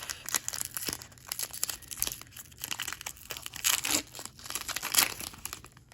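Foil wrapper of a Pokémon card booster pack crinkling and being torn open, a run of irregular crackles with louder rips about four and five seconds in.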